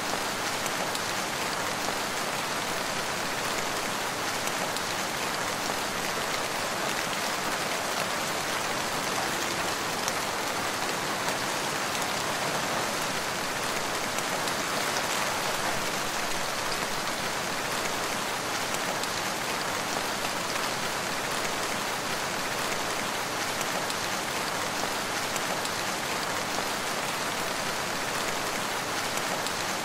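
Steady rain, an even hiss of many drops that keeps the same strength throughout.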